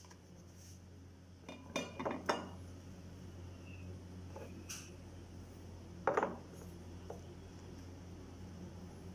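Dishes and cutlery clinking in short knocks: a quick cluster about one and a half to two and a half seconds in, a single clink near the middle, and another cluster about six seconds in, over a low steady hum.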